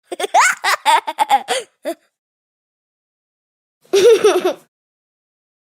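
A small child laughing: a quick run of short, high-pitched laughs over about two seconds, then one more brief laugh about four seconds in.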